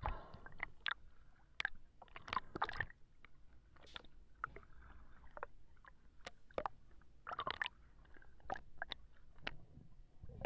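Water sounds on a diver's camera: scattered sharp clicks and crackles, with two short bursts of sloshing water noise about two and a half and seven and a half seconds in.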